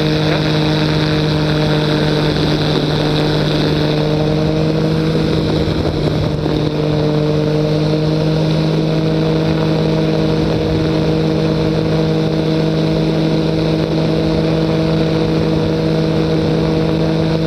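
Weight-shift ultralight trike's engine and propeller running steadily in flight, a constant drone with wind noise rushing over the open cockpit.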